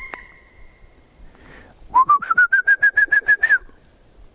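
A bird calling close by: a fast run of about a dozen short, loud notes, about eight a second, rising in pitch at first and then holding level for about a second and a half.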